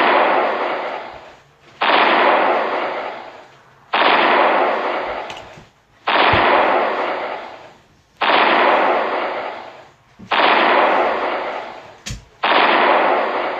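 A looped cartoon sound effect: a loud, noisy blast that starts sharply and fades over about a second and a half, repeated about every two seconds, seven times over.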